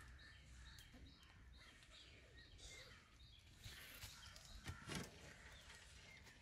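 Near silence: faint outdoor ambience with small birds chirping in a run of short, quick notes, and a soft knock about five seconds in.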